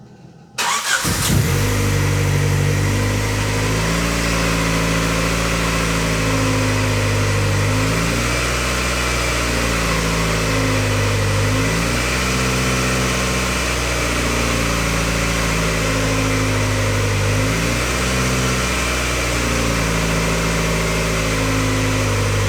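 Turbocharged Honda D16Z6 SOHC four-cylinder engine, freshly rebuilt, fires up about half a second in after a brief crank and then idles with its revs surging up and down every few seconds. The surge is what Hondas do when they are low on coolant, with air still in the cooling system.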